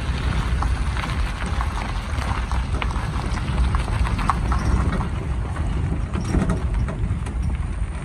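Vehicle driving along a dirt road, heard as a steady low rumble with wind buffeting the microphone and scattered small clicks and rattles.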